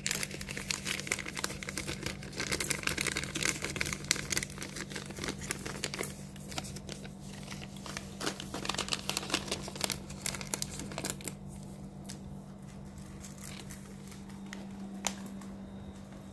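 Plastic dry cat-food bag crinkling as it is handled, dense for the first several seconds, then sparser and fading, over a steady low hum.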